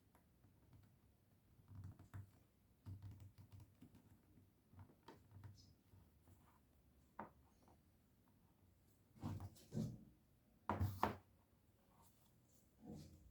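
Faint, scattered handling noises: soft knocks and clicks, with a few louder thumps about two-thirds of the way through.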